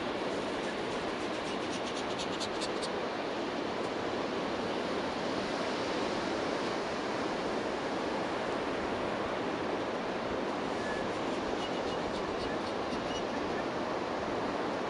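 Ocean surf breaking and washing up a flat sand beach, a steady wash of noise, with a few faint high ticks about two seconds in and again near the end.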